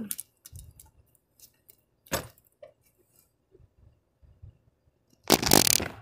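Scattered light metallic clicks and taps, with a sharper click about two seconds in, then a loud, brief rustling burst near the end as the camera is picked up and handled.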